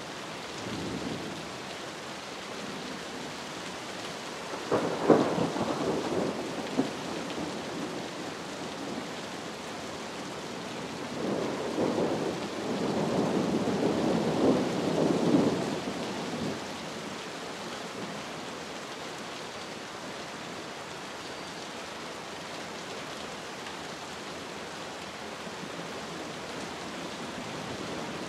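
Steady rain with two rolls of thunder: a sharp clap about five seconds in that rumbles off over a couple of seconds, then a longer rolling rumble from about eleven to sixteen seconds in.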